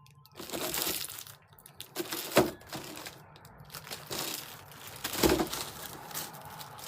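Packaging and craft-kit contents crinkling and rustling as they are rummaged through by hand, with two sharper knocks, one a couple of seconds in and one about five seconds in.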